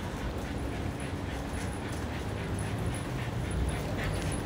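A pet Pomeranian whimpering softly over a steady low rumble of background noise.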